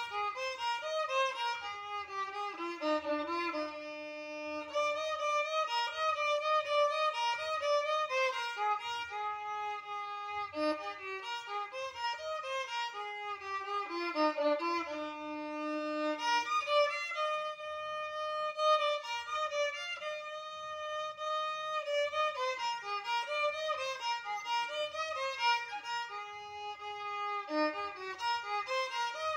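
Solo violin bowed by a young boy, playing a melody of quick changing notes with several longer held notes, among them low ones a few seconds in and again around the middle.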